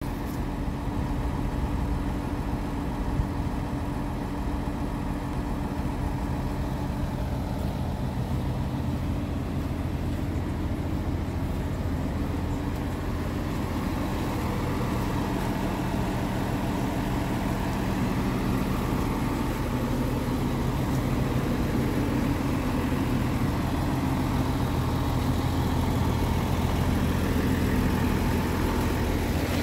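Scania R 450 tractor unit's 13-litre straight-six diesel idling steadily.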